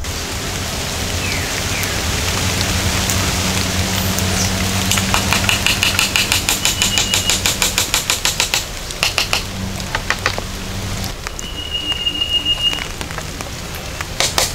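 Steady rain hiss, with stretches of rapid ticking about five times a second and a brief high whistle near the end.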